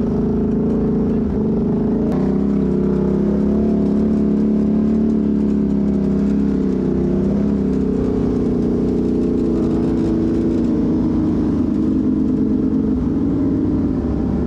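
Honda CRF450 dirt bike's single-cylinder four-stroke engine running under way at fairly steady revs, its pitch rising and dipping slightly.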